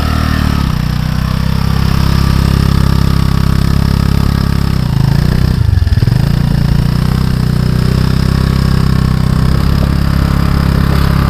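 Motor scooter's small engine revving and held at high revs while its rear wheel spins in loose beach sand, the scooter bogged down and unable to move. The revs drop briefly about halfway through, then pick up again.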